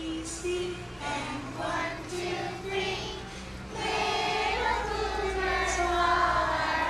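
A group of young children singing a song together, with a woman's voice and an acoustic guitar accompanying them; the singing gets louder about four seconds in.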